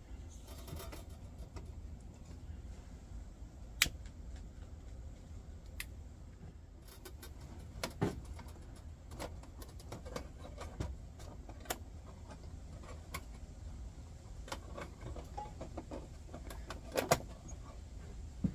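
Scattered light metallic clicks and clinks from a small sheet-steel folding candle lantern being handled, with a few sharper knocks about 4, 8 and 17 seconds in, over a steady low hum.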